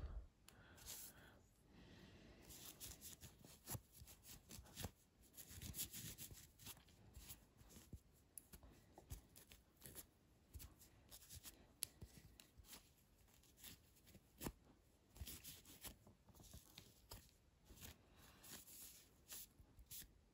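Faint rubbing and rustling of a microfiber cloth wiping the steel parts of a disassembled folding knife, with scattered light clicks of the metal parts being handled.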